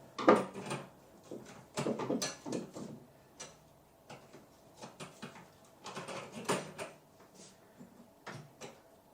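Irregular clicks, knocks and scrapes of metal fixture hardware being handled: the sconce's mounting bracket and a screw at a pancake electrical box. They come in several short bursts, the sharpest just after the start.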